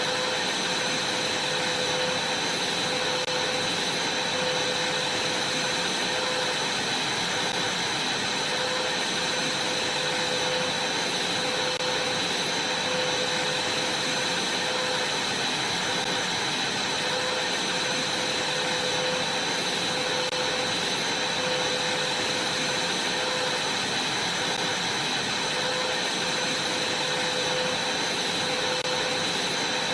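Vacuum cleaner running steadily, its motor giving a constant rushing noise with a high whine.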